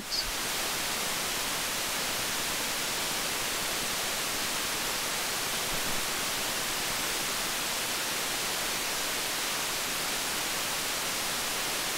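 Steady, even hiss: the amplified self-noise of an ST LS204 op amp in a gain-of-101 noise test circuit.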